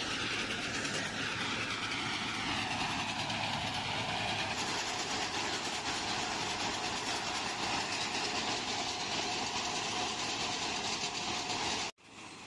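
Railway ballast cleaning machine at work on the track: a steady, dense mechanical clatter and rumble as it digs out the stone ballast. The level drops sharply near the end.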